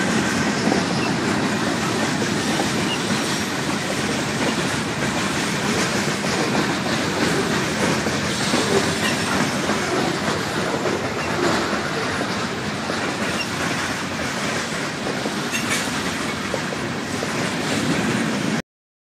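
A freight train's boxcars rolling past at close range, a steady noise of steel wheels on rail with clicks over the rail joints. The sound cuts off suddenly near the end.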